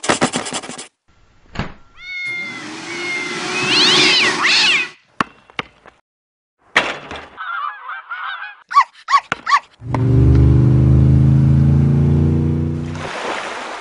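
A string of cartoon sound effects. Clicks come first, then a hissing stretch with sliding, whistling cries. After that come a bubbly warble and three short chirps, and near the end a low, steady hum lasts about three seconds before fading.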